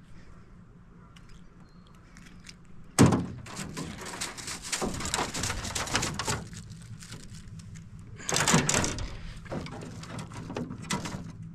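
A sharp knock against the boat about three seconds in, then a few seconds of clattering and rustling as fishing gear is handled in the bottom of a small jon boat, with another loud burst of handling noise a little past eight seconds.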